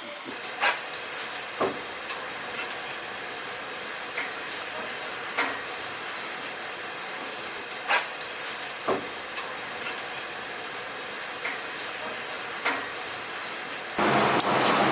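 Chicken frying in hot oil, sizzling steadily, with a few short sharp knocks of utensils now and then. A louder sizzle takes over near the end.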